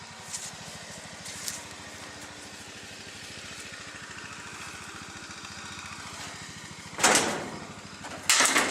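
An engine idling steadily with an even low pulse, interrupted near the end by two loud, short bursts of rustling or scraping noise.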